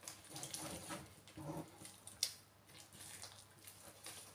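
Fork beating wet egg-and-flour cake batter in a glass bowl: faint, irregular squishing and scraping strokes, with one sharp click about two seconds in.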